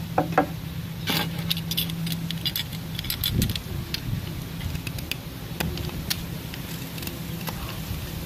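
Utility knife blade cutting and scraping a notch into a green bamboo tube: quick scratchy clicks and scrapes, busiest in the first half, after two light knocks at the start. A steady low hum runs underneath.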